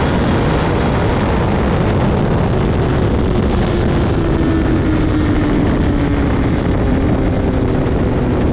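Kawasaki ZX10R's inline-four engine running through a Brocks titanium CT megaphone exhaust, its note falling slowly over several seconds, over a loud steady rush of noise.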